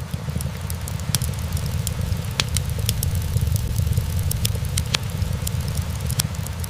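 Wood fire burning in a fireplace: logs crackling with irregular sharp pops, a few louder ones standing out, over a steady low rumble.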